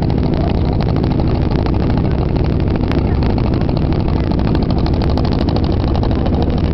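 Motorboat engine running steadily, a continuous low drone with the rush of water under the hull.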